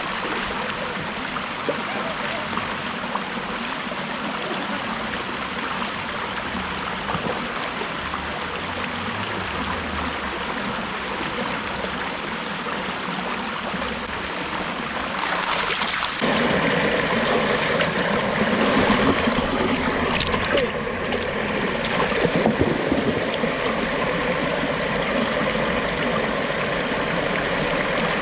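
Brook water trickling steadily; about sixteen seconds in it becomes louder and fuller.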